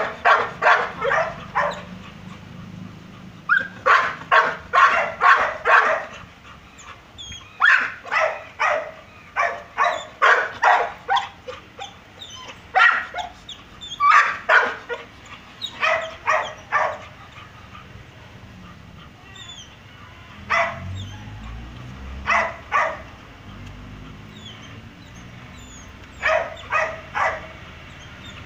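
A dog barking in quick runs of several sharp barks, each run lasting a second or two with pauses between. The runs grow shorter and sparser in the second half, with a few single barks.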